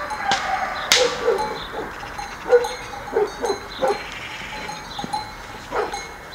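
A herd of cows and goats walking on an asphalt road, with several short goat bleats and a few sharp knocks of hooves on the tarmac over a steady background hiss.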